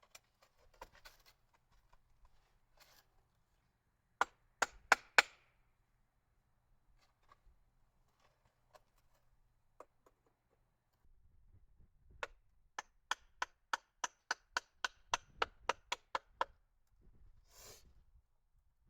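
Sharp, hard clicks: a few spaced about half a second apart, then a steady run of about fourteen at three to four a second. A short rustle or hiss comes near the end.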